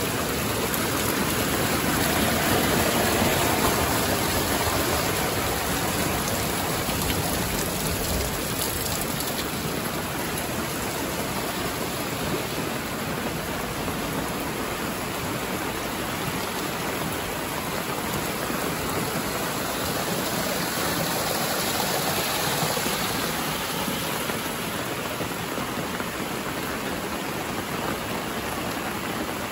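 Heavy rain falling steadily, a dense unbroken wash of water sound that swells slightly a few seconds in.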